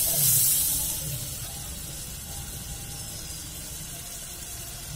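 Prawns sizzling as they fry in hot oil in a kadai. The sizzle is louder for about the first second, then settles into a quieter, steady hiss.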